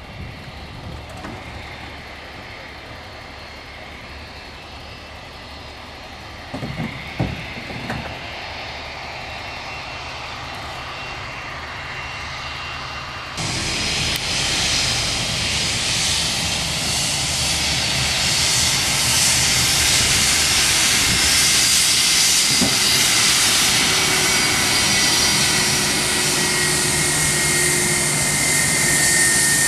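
Twin-engine Airbus A320-family jet airliner's engines: a steady engine hum with a thin whine while the jet sits lined up on the runway, broken by a few thumps about seven seconds in. Roughly halfway through the sound jumps suddenly to a much louder, steady rushing jet noise as the airliner runs at take-off power on its take-off roll.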